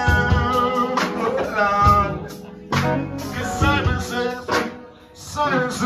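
A song performed live: a man singing through a microphone over an accompaniment with a slow, steady beat, his held notes wavering.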